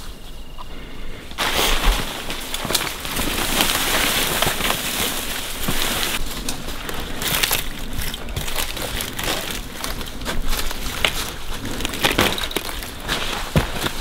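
Footsteps on rocky ground and dry brush scraping and crackling against clothing and packs as hikers push down through scrub, starting about a second and a half in, with many irregular snaps and crunches.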